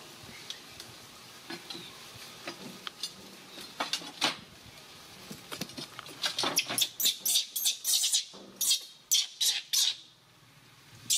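Cloth rubbing and scrubbing a wet baby macaque's fur: scattered light rubs at first, then from about six seconds in a quick run of loud rubbing strokes, about four or five a second, that stops shortly before the end.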